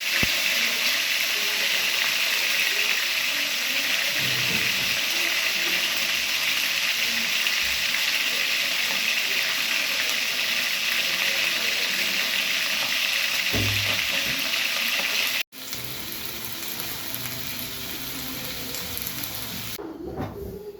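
Food sizzling as it fries in hot oil, a steady hiss that cuts off abruptly about two-thirds of the way through and comes back quieter.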